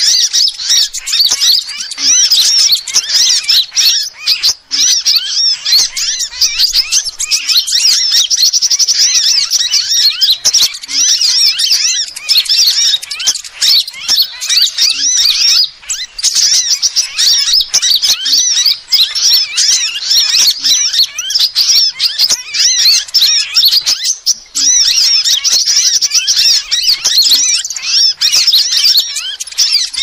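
Sunbirds chirping and twittering in fast, high-pitched runs, almost without pause. It is a recording played as a lure to call wild sunbirds in.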